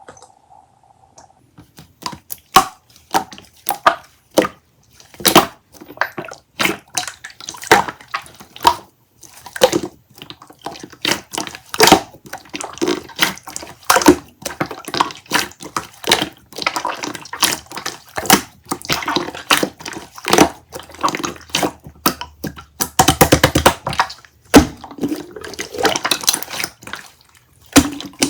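Lemonade being made: irregular clinks and knocks mixed with pouring and splashing liquid, with a brief fast run of clicks about two thirds of the way in.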